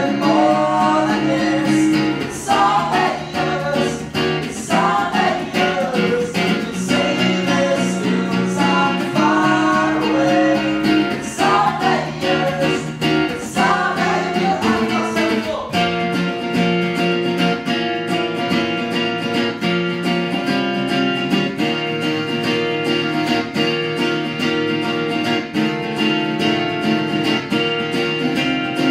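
A small acoustic band playing live: strummed acoustic guitar, upright piano and a second, electric guitar, with a voice singing over them for roughly the first half; after about sixteen seconds the singing stops and the instruments carry on alone.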